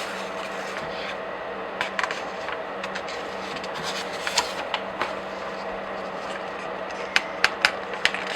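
Pages of comic books and graphic novels being turned by hand: paper rustling, with a quick run of crisp page snaps near the end, over a steady low hum.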